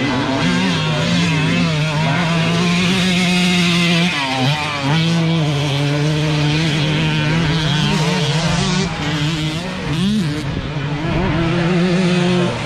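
Two-stroke 125cc motocross bikes racing, their engines revving high and dropping back as riders shift and roll off the throttle. The engine note dips briefly about four seconds in and again around ten seconds.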